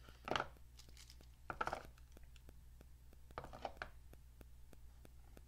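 Packaging being handled as accessories are taken out of the box: three short bursts of crinkling rustle about a second or two apart, over a faint steady low hum.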